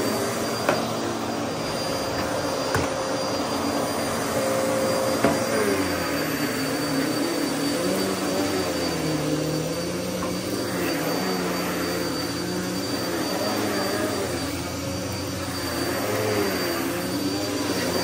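Upright vacuum cleaner running steadily while pushed back and forth over carpet, its motor pitch wavering with each stroke. A few sharp clicks in the first five seconds as it picks up crunchy debris.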